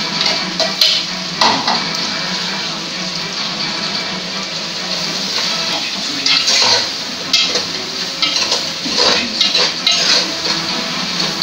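A metal utensil clinking and scraping against a metal cooking pot on a gas stove, with several sharp clinks scattered through, over a steady hiss.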